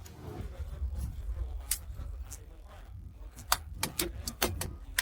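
Sharp metallic clinks and taps, as of tools and metal parts knocked together during repair work, several in quick succession near the end, over a low steady rumble.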